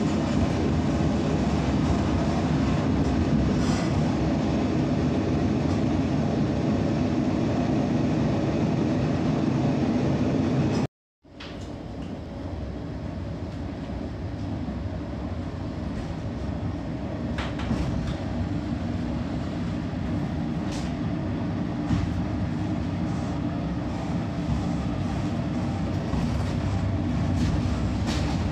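Passenger train running steadily over the tracks, then, after a short cut, a diesel railcar pulling away from a stop. Its running noise builds as it gathers speed, with a few sharp clicks from the wheels and coach.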